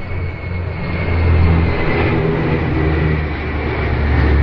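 Steady low drone of a formation of transport aircraft flying over: an IL-78 tanker's jet engines with An-32 and Dornier turboprops. It swells a little about a second in.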